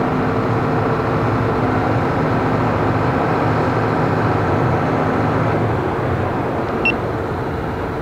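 Sumitomo 300C excavator's diesel engine running steadily at working revs while it loads a dump truck, with a brief high chirp about seven seconds in.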